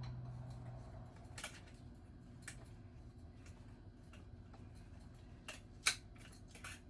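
Scattered light clicks and taps from small screws and a screwdriver being handled as the shipping screws come off a ceiling fan motor, with the sharpest click about six seconds in.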